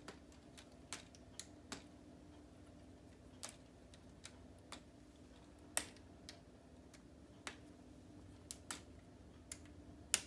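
Plastic K'nex rods and connectors clicking irregularly as they are handled and swung out into place, a dozen or more sharp clicks with the loudest near the end.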